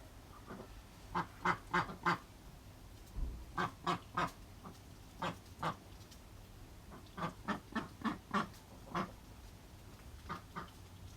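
Duck quacking in short runs of calls, two to six quacks at a time with pauses between.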